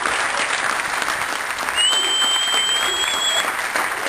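Wedding guests applauding, a dense run of clapping, with a high steady whistle lasting about a second and a half in the middle.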